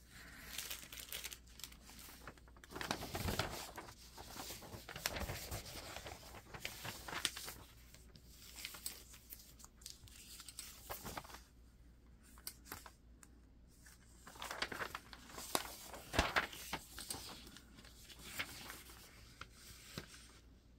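Magazine pages being turned and handled: irregular rustling and crinkling of paper, with louder swishes every few seconds.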